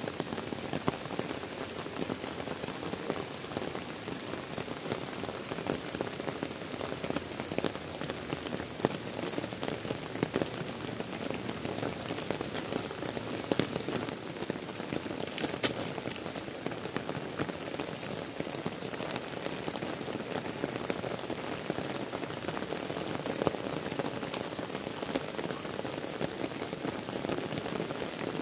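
Heavy rain falling steadily on a lake and the trees along its edge: a dense, even hiss with scattered sharp taps of single drops.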